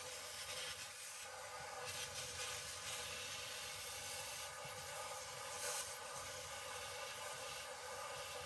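Vacuum cleaner running steadily with a hissing whine as it sucks debris out of the dishwasher's filter well, the suction sound briefly surging a couple of times.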